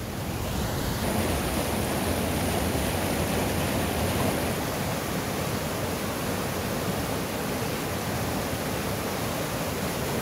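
Rushing whitewater of a swollen monsoon mountain river pouring over rocks: a steady, even rush of water that gets a little louder about a second in.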